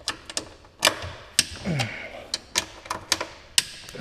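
A hand ratchet clicking in irregular short runs as bolts are worked loose from a car's plastic undertray, with a brief low voice sound near the middle.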